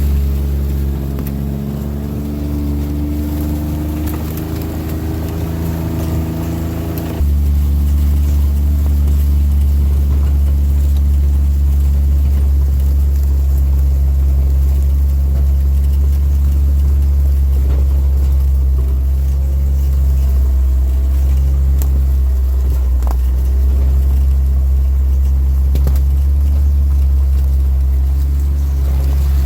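Engine running steadily with a low hum. About seven seconds in it abruptly becomes louder and steadier.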